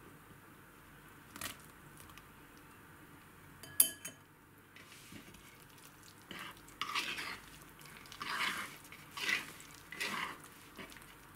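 One sharp clink of a utensil about four seconds in, then from about six seconds a run of rhythmic scraping swishes, about one a second, as a spatula folds cherries into thick cake batter in a wooden bowl.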